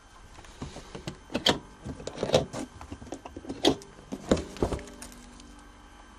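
Handling noise from a handheld camera being moved about: irregular knocks, clicks and rubbing, several sharp bumps in the middle, settling down near the end.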